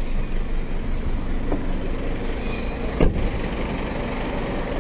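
Isuzu D-Max diesel engine idling steadily just after being started, with a single thump about three seconds in.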